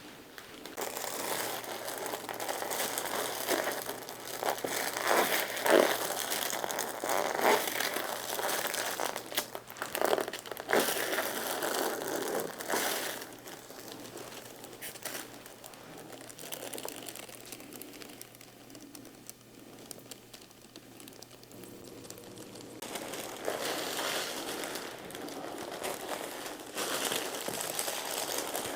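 Rustling and rubbing of hands working a deep tissue massage, in spells of louder rustling with a quieter stretch in the middle.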